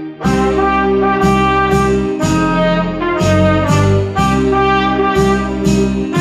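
Cornet playing a song melody over a recorded backing of bass, chords and a steady light beat.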